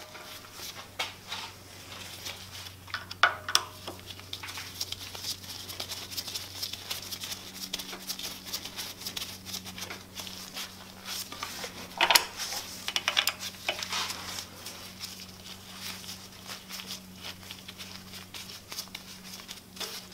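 Small metallic clicks and scrapes of a hex key working a set screw in the steel handle sleeve on a lathe spindle. The clicks bunch up about three seconds in and again around twelve to fourteen seconds in, over a faint steady low hum.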